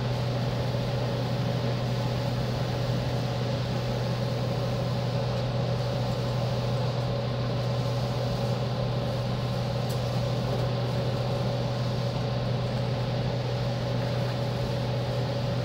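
Inside a JR East 205 series electric train: a steady, unchanging drone with a constant low hum and a fainter steady higher tone above it.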